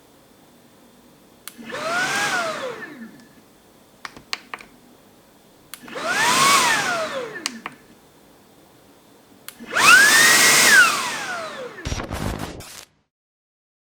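Dreame T20 cordless vacuum's high-speed motor switched on and off three times: each time a click, then a whine that climbs in pitch and sinks away as the motor spins down. The third run is the loudest and reaches the highest pitch, and a brief rattle follows near the end.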